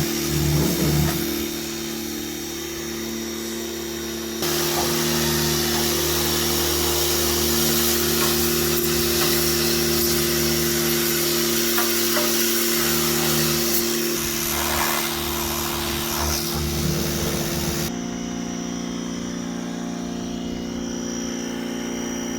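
Pressure washer running: a steady motor-pump hum under the hiss of the water jet blasting ash and loose paint off the cast-iron stove. The sound changes abruptly twice.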